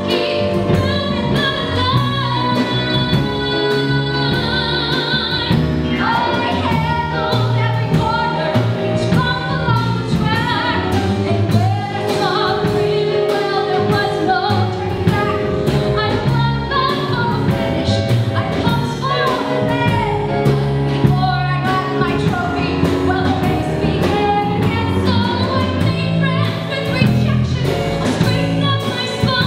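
A woman singing a show tune into a microphone with a live band behind her, holding some notes with a wavering vibrato.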